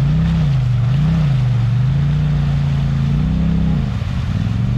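Polaris RZR side-by-side's engine revving under load as it pulls through a deep mud hole: two quick throttle blips, then revs held higher for about a second and easing off near the end.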